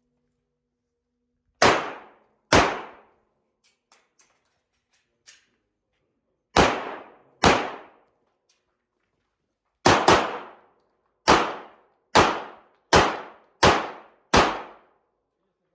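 Eleven 9mm pistol shots from a Glock 17 Gen5, each with a short reverberant tail. They come as two pairs, then a quick double, then a steady string of five about one shot every 0.75 s. A few faint clicks come between the first and second pairs.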